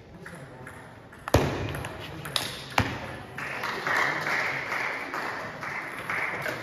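Table tennis ball strikes during a short rally: three sharp clacks of ball on bat and table within about a second and a half, the first the loudest. They are followed by a few seconds of louder noise in the hall.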